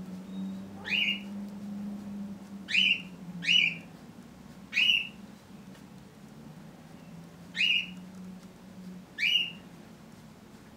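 Six short, sharp chirps, each rising quickly in pitch, spaced irregularly over about nine seconds, over a steady low hum that fades near the end.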